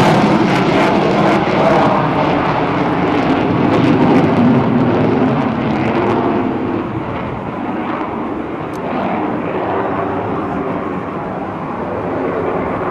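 Jet noise from a QF-4E Phantom II's two J79 turbojets as it flies by: loud at first, then slowly fading and growing duller as it moves away over the second half.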